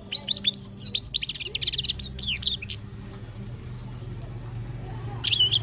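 European goldfinch singing a rapid, high twittering song for about three seconds, then a short burst of twittering near the end.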